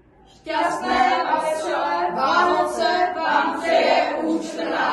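A group of boys singing together in unison, starting about half a second in and stopping just before the end.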